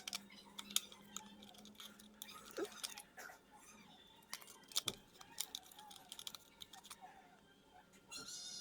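Scattered small plastic clicks and taps as the parts of a car power-window master switch are handled and fitted together, with a couple of sharper clicks about a second in and near the middle.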